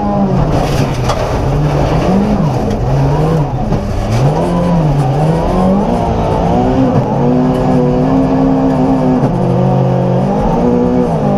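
Volvo 240 rally car's engine at full effort on a rally stage, the revs climbing and dropping again and again through gear changes and lifts, then held fairly steady for a few seconds.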